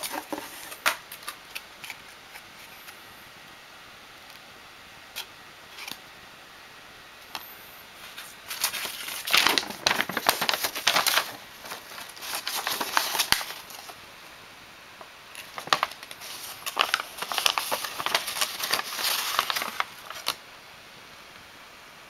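Paper rustling and crinkling as a folded printed sheet is unfolded and handled, in two stretches of several seconds each, with a few light clicks and taps before them.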